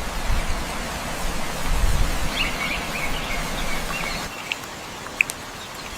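Outdoor ambience: a steady hiss with birds chirping a few times around the middle and briefly near the end.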